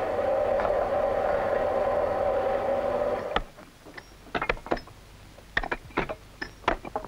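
A steady rushing noise stops suddenly about three and a half seconds in. It gives way to sharp, irregular knocks of iron stonemason's tools striking sandstone, about two or three a second.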